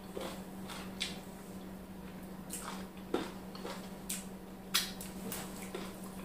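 Close-up eating sounds of a person eating by hand: wet lip smacks, chewing and finger licking. They come as a series of short, sharp smacks, the loudest about one, three and five seconds in, over a steady low hum.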